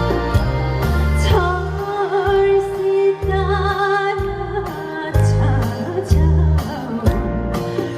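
A woman singing live over an amplified backing track with a heavy bass and drum beat. Her voice comes in about a second in and holds long notes with a wide vibrato.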